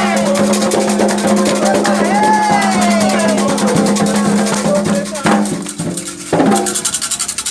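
Candomblé ritual singing with drums and rattles, the voices sliding in pitch. About five seconds in the singing drops away, with two sharp knocks, and a fast pulsing rattle carries on.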